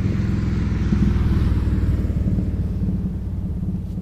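Low engine rumble of a passing motor vehicle, swelling to its loudest about a second in and then slowly fading.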